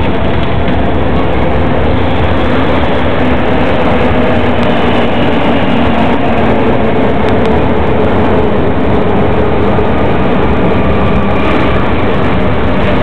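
Double-decker electric passenger train running at an underground station platform: a loud, steady rumble with a faint motor whine that slides slowly in pitch.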